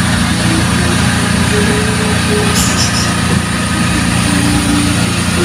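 Water pump serving a fishing pond, running with a loud, steady drone.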